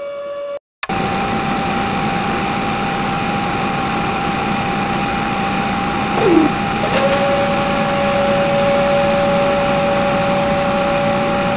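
Small electric motors of a homemade toy borewell drilling rig running with a steady whirring whine. About six seconds in, a short falling whine is followed by a second, lower steady tone that holds to the end.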